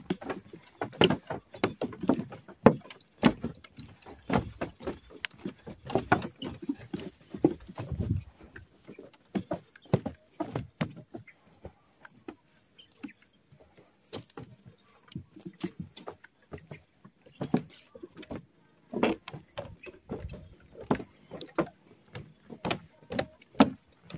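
Footsteps on a weathered wooden plank boardwalk: an uneven run of hollow knocks on the boards, a few a second, as the walker keeps a brisk pace.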